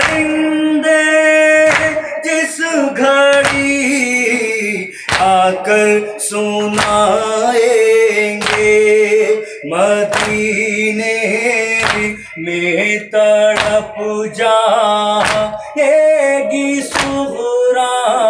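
A noha lament chanted by male voices with rhythmic matam: open hands slapping on chests in a steady beat, a little more than one slap a second, under the chant.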